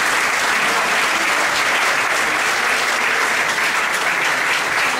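Audience applauding steadily after a sung song.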